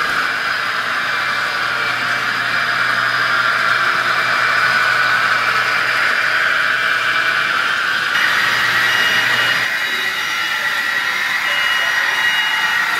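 N-scale model trains running on the layout's track: a steady whirring rattle of small motors and wheels on rail. The sound shifts slightly about eight seconds in, and a low hum drops out near ten seconds.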